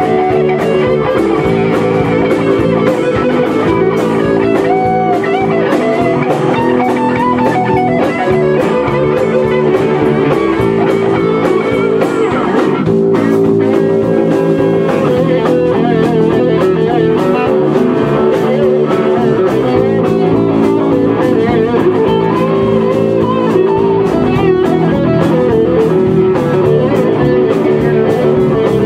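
A live band plays a loud instrumental on two electric guitars, electric bass and drum kit. A guitar lead with gliding, bent notes runs over the steady rhythm.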